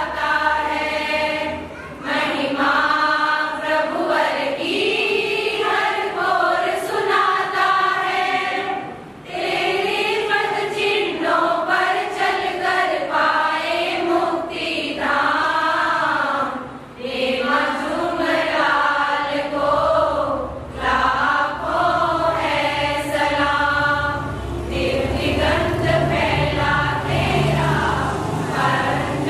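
Women's choir singing a devotional group song (geetika) together, in long sung phrases separated by short breaks.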